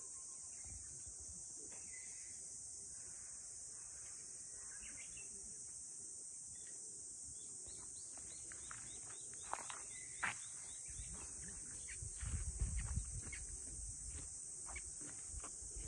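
Steady high-pitched chorus of summer insects. From about halfway in come scattered short ticks, and about three-quarters in a brief low rumble, the loudest moment.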